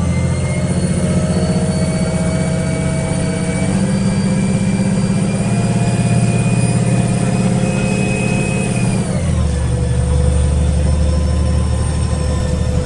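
Cabin sound of a Karosa B961 articulated city bus under way. The diesel engine rumbles under a whine that rises slowly in pitch as the bus accelerates, then drops sharply about nine seconds in as the gearbox shifts up, and runs on steady.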